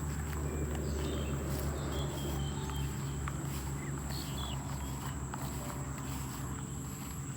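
A person's footsteps walking, over a steady high insect drone and a low hum, with a few faint short chirps.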